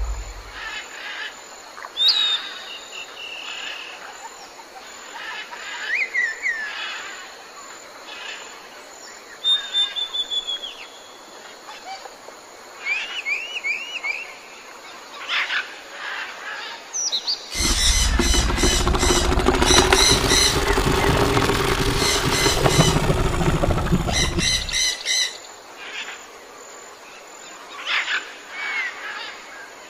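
Jungle ambience played over an attraction's sound system: scattered bird calls and chirps. From about 17 seconds in, a loud, deep, noisy sound effect lasts about seven seconds.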